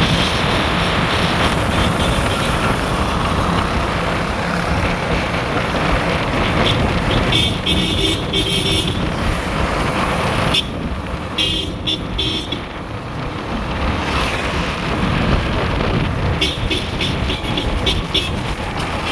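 Road traffic noise on a busy town street, heard while moving, with short vehicle horn toots a few times in the second half.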